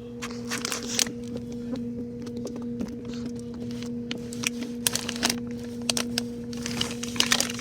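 Steady electrical hum from a refrigerator, with scattered clicks, knocks and rustles as the camera is handled and moved about inside it.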